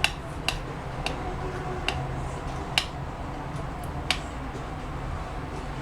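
An egg being beaten in a small container, the utensil knocking against the side in sharp, irregular clicks, about six over four seconds, over a steady low hum.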